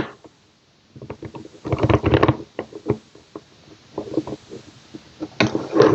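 Sparrows disc detainer pick clicking and scraping against the discs inside a Cordo disc detainer bicycle lock as it is tensioned and worked. An irregular run of small metallic clicks and scrapes, denser about two seconds in.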